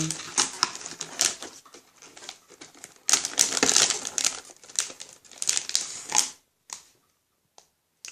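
Motherboard packaging being handled: irregular crinkling and rustling of plastic and cardboard, densest about three seconds in, stopping a little after six seconds with a few faint clicks after.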